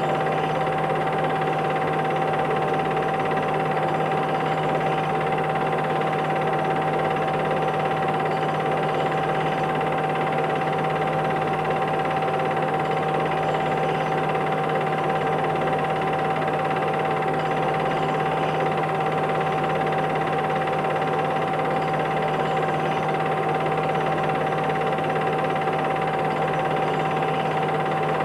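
Film projector running: a steady mechanical whir with a constant whine and hiss that does not change.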